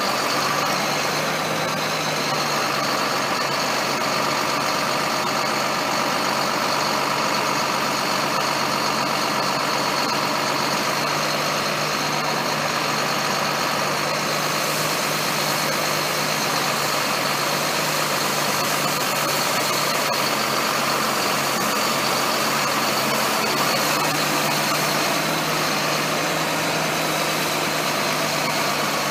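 Tractor and Amadas peanut combine running steadily: a constant engine drone with a steady high whine above it.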